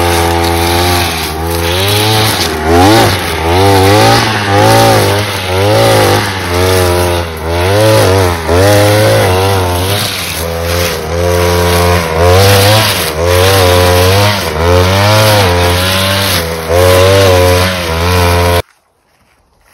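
Two-stroke chainsaw, a Bolat BY 520, running loud with its engine speed dipping and picking up again over and over. It stops abruptly near the end.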